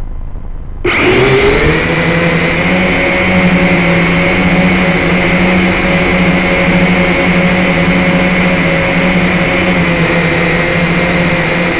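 Syma toy quadcopter's small electric motors and propellers spinning up about a second in after a brief lull, then running in a steady whine as the drone flies. Heard close through the drone's own onboard microphone.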